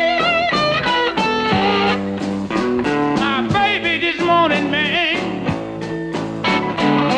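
Electric blues band recording: an electric slide guitar plays a solo of wavering, sliding notes over a second guitar and a drum kit.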